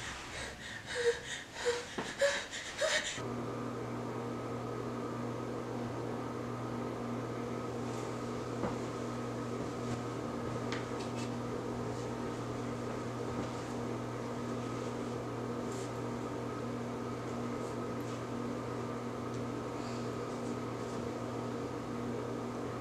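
A steady low hum made of several held tones, which starts abruptly about three seconds in and stays unchanged. Before it there are a few brief sharp noises and short pitched sounds.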